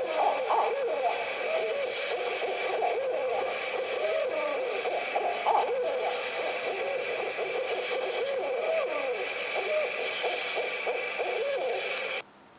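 Several animals calling at once, with wavering, overlapping pitched calls that run on continuously. The sound cuts off abruptly near the end.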